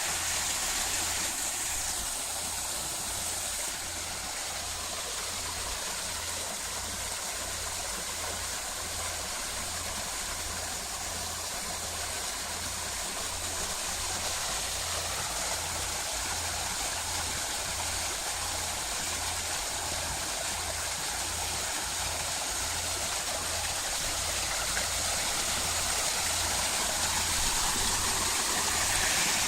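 Decorative artificial waterfall: water falling and splashing steadily in an even hiss, growing a little louder near the end.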